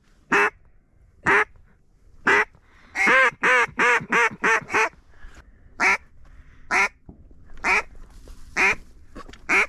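Mallard duck call blown in hen quacks: single loud quacks about once a second, with a quick run of about eight quacks about three seconds in, calling ducks toward the decoys.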